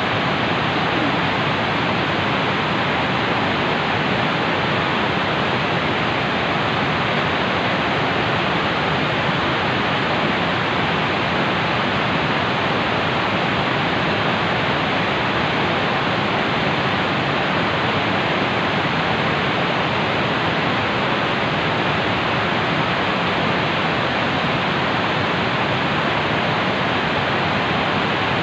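Fast-flowing river water rushing, a loud, steady, unbroken rush.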